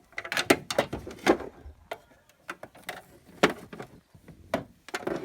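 Irregular clicks and knocks of toy dolls and playset pieces being handled and set down, the loudest about half a second, a second and a quarter, and three and a half seconds in.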